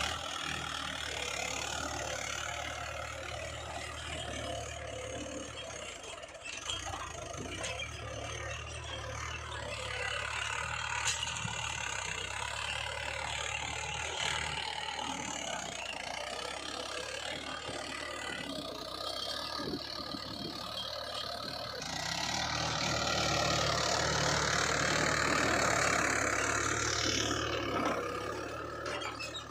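Mahindra 575 DI tractor's diesel engine running steadily, with mechanical clatter and rattle over the engine hum. It grows louder for several seconds near the end.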